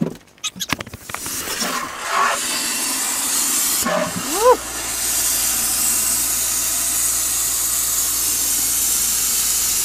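Compressed air hissing steadily out of the sprinkler line's open drain valve, spraying the last water out of the pipe as the line is blown out for winter. It starts with a few knocks and comes in about a second in.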